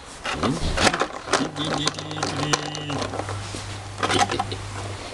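Small electric motor and gearbox of a Heng Guan P402 RC crawler whirring, rising in pitch at the start and then running steadily, with sharp plastic clicks and knocks over it.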